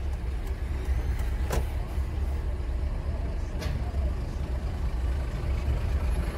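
Steady low engine rumble of motor vehicles moving at walking pace, with two faint clicks about one and a half and three and a half seconds in.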